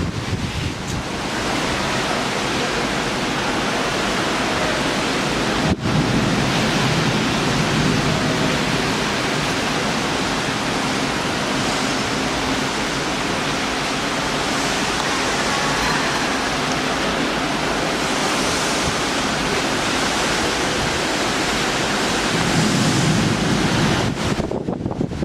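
Loud, steady rush of storm wind, with a momentary dropout about six seconds in.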